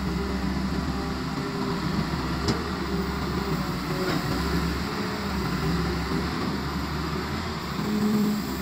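Caterpillar tracked excavator's diesel engine running steadily under load as the machine digs and swings its bucket, with a couple of faint knocks from the working gear. The engine note swells briefly near the end.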